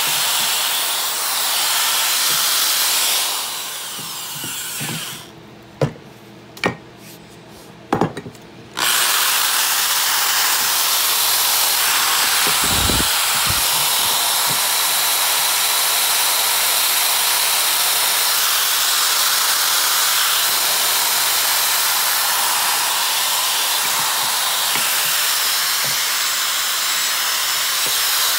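Corded drill spinning a sanding disc against the steel of a Sager double bit axe head, grinding off rust with a steady hiss. About four seconds in the sanding stops for roughly five seconds, with a few sharp knocks, then starts again and runs on.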